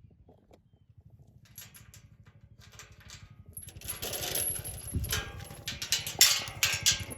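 A small off-road vehicle engine idles low and steady, with metallic clicks and a rattling clatter that grow louder from about halfway through.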